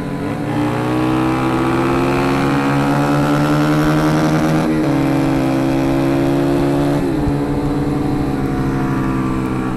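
Motorcycle engine pulling under way, heard from the rider's seat. Its pitch creeps up and then drops at gear changes about two and a half seconds in and again about seven seconds in, with a steady rush of wind and road noise over it.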